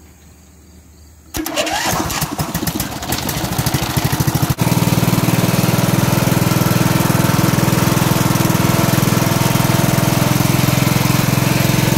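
Riding-mower engine on a homemade log splitter starting up: it cranks for about three seconds, then catches and runs steadily and loudly, driving the hydraulic pump.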